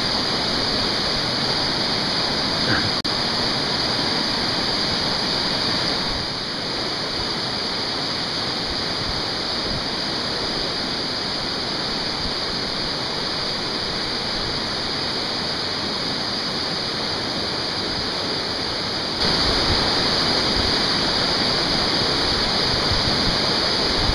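River rapids rushing steadily: an even wash of churning whitewater. It drops slightly in level about six seconds in and rises again about nineteen seconds in.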